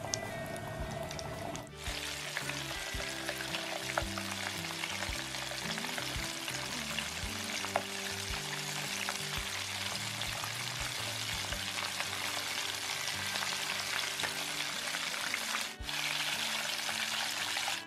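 Battered chicken wings deep-frying in hot oil: a dense, steady crackle and sizzle of bubbling oil, breaking off briefly about two seconds in and again near the end.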